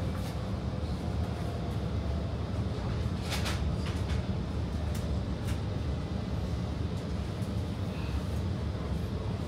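Stockholm metro train running along the track, heard from inside the passenger car as a steady low rumble. A few short clicks come through about three to five seconds in.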